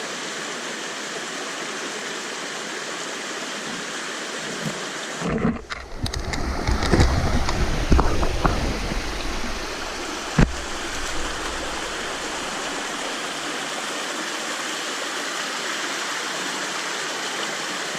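Steady rush of flowing river water. About five seconds in come a few seconds of low rumbling and knocks, and a single sharp click follows about ten seconds in.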